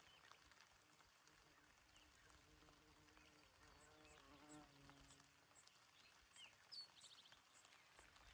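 Faint gentle rain falling on open meadow grass, with scattered soft drop ticks. A faint low-pitched sound runs through the middle, and a short high bird chirp comes near the end.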